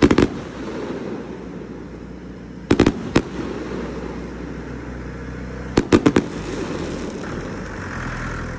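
Fireworks going off: clusters of several sharp bangs about every three seconds, over a steady background din.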